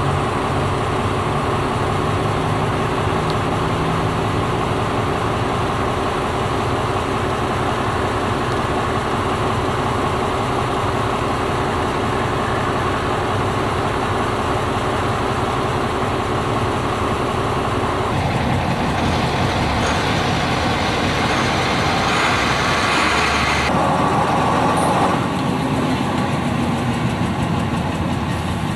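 FS D.143 diesel shunting locomotive's engine running with a steady note for about the first two-thirds. Then the sound changes abruptly to a rougher, noisier running, with a hiss that cuts off suddenly a few seconds before the end.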